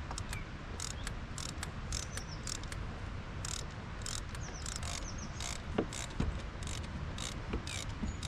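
Hand ratchet clicking in short, irregular bursts while undoing the throttle body's bolts, with birds chirping faintly in the background.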